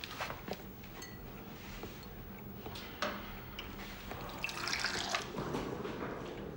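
Water running from a bottled-water cooler's tap into a cup, starting about four and a half seconds in, after a few small clicks and knocks.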